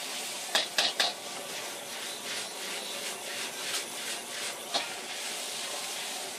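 Fried noodles sizzling in a carbon-steel wok over a high gas flame, a steady hiss as the wok is tossed. A metal ladle knocks sharply against the wok three times about a second in, and once more near the five-second mark.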